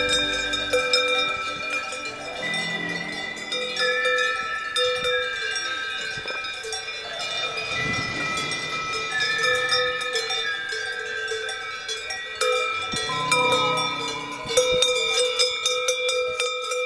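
Cowbells on a grazing herd of cows clanking and ringing continuously, many bells of different pitches overlapping.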